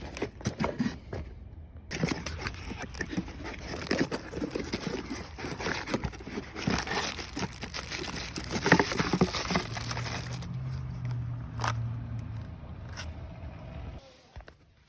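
Hands working inside a gas dryer while the igniter is swapped: irregular clicks, scrapes and crinkling of parts being handled. A low hum joins in for a couple of seconds near the end.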